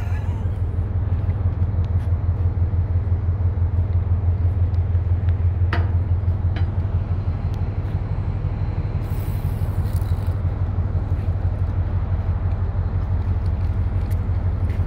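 Large vessel's engine running with a steady, deep hum, heard from the deck, with one brief knock about six seconds in.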